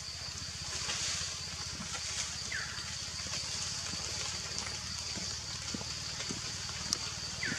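Outdoor roadside ambience: a steady high-pitched hiss or buzz with a low rumble underneath, and two short chirps falling in pitch, one about two and a half seconds in and one near the end.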